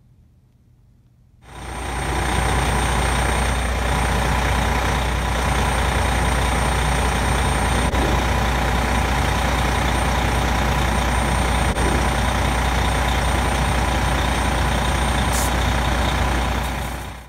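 A heavy truck engine running steadily, a deep hum with a steady whine over it. It cuts in about a second and a half in and fades out near the end.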